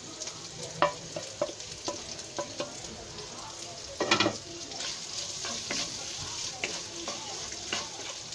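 Chopped onion, capsicum, tomato and green chilies frying in oil in a nonstick wok, with sharp taps in the first few seconds as the leftover chicken marinade is scraped in from a bowl. About four seconds in there is a loud brief clatter, then a spatula stirring the vegetables over a steady sizzle.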